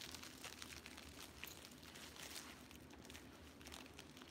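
Faint, irregular rustling and crinkling of packaging being handled.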